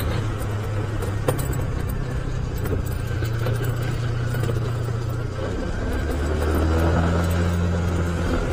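Motorcycle engine running steadily while riding over a rough, broken road, with light clicks and rattles; the engine note changes about five seconds in.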